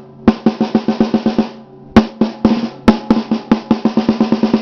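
Snare drum with an Evans Genera HD Dry batter head, played with sticks: two runs of strokes that quicken into rolls, split by a short pause about a second and a half in, with the drum's ring sounding between hits.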